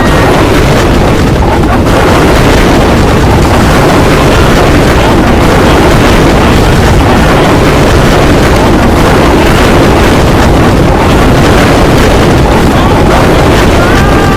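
Loud, steady rumbling noise with a dense clatter running through it, which does not break or fade.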